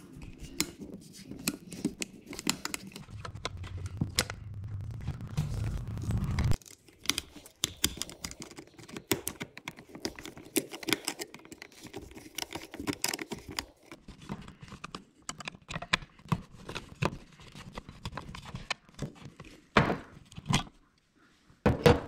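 Irregular clicks, knocks and scrapes of a screwdriver working the terminal screws of a metal-strapped 240 V receptacle and of the stiff wires being pulled free. A low rumble runs under the first six seconds or so, then stops.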